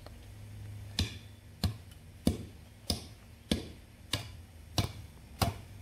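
Hand tamper's flat steel plate striking wet gravel road base to compact it, in an even rhythm of about eight thuds, one every two-thirds of a second, starting about a second in. A faint steady low hum lies underneath.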